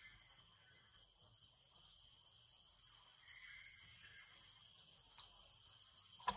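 Steady, high-pitched insect chorus: several shrill tones held without a break. A single sharp click sounds shortly before the end.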